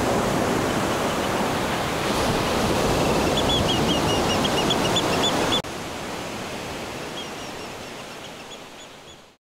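Steady rushing noise of water with a run of short, high chirps a few seconds in. About halfway through it cuts abruptly to a quieter ambience with faint chirps, which fades out to silence near the end.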